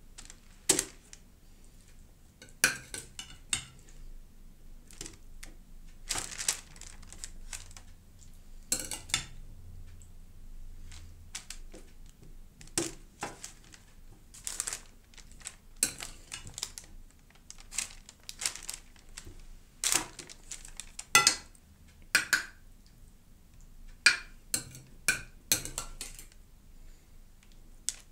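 Metal spoon scooping a meat and vegetable mixture out of a bowl, clinking and scraping against the bowl in irregular strokes, as the food is spooned and spread onto parchment paper.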